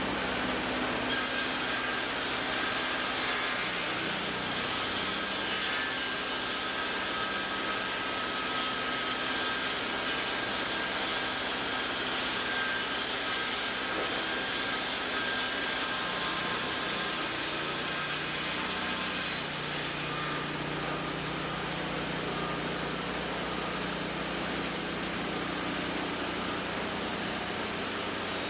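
WoodMizer sawmilling machinery running steadily under power while its saw cuts through oak, an engine drone mixed with a continuous sawing noise; the engine note shifts a little about two-thirds of the way through.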